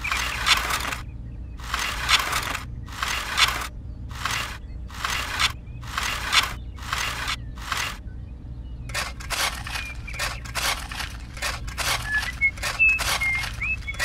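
A miniature metal shovel scraping and digging into a hard, crumbly dirt surface. In the first eight seconds it makes about nine separate drawn-out strokes, then turns to quicker, shorter scrapes several times a second as it chips the surface up.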